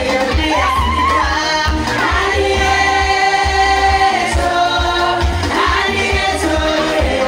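A woman singing a gospel song into a microphone, with held and gliding notes, over loud amplified backing music with a pulsing bass beat.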